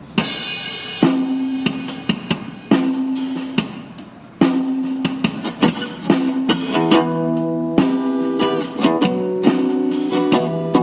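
Guitar playing a lead melody of single plucked notes that ring on, over a drum accompaniment; the playing is sparse at first and grows fuller about halfway through.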